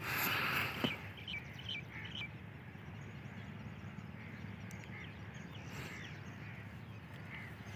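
Birds chirping in short scattered calls over a faint steady low rumble, after a brief burst of noise in the first second.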